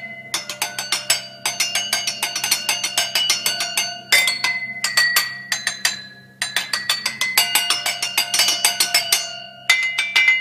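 Wooden drumsticks rapidly striking a set of champagne flutes and wine glasses partly filled with liquid, each glass ringing at its own pitch. They are played as a tune in quick runs of strikes with brief pauses.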